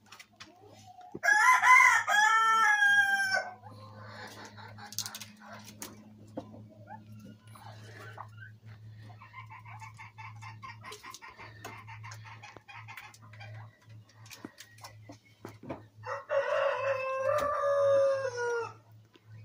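A rooster crows twice, a long call about a second in and another near the end, with soft repeated clucking between the crows. A steady low hum runs underneath.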